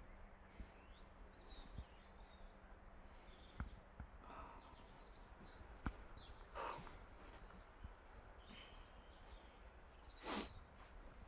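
Quiet outdoor ambience with faint, scattered bird chirps, a few small clicks and a couple of soft rustles from handling.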